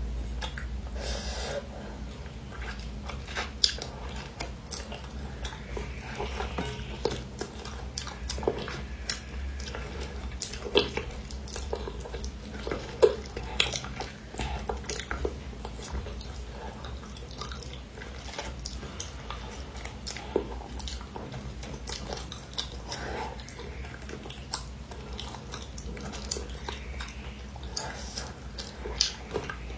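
Wet chewing, sucking and lip-smacking while eating spicy soft-shelled turtle, with many short sharp clicks scattered irregularly throughout.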